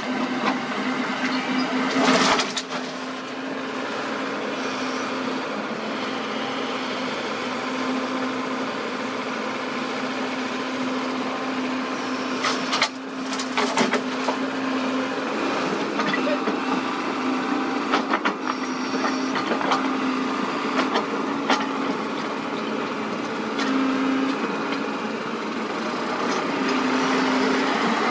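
Diesel engine of a Sany SY75C hydraulic excavator running steadily at work, a held hum, with scattered sharp knocks and cracks at intervals.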